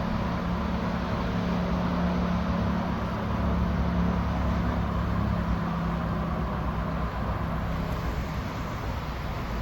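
A steady low rumbling hum with a droning tone, like a running motor, that fades out about seven seconds in.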